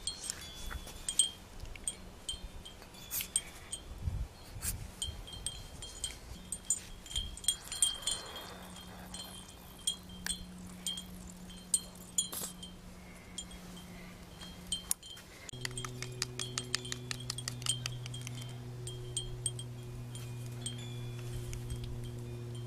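Metal wind chimes ringing in light, irregular strikes. A steady low hum comes in about two-thirds of the way through.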